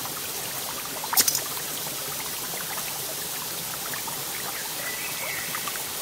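Forest creek flowing steadily, an even sound of running water, with one brief sharp sound about a second in.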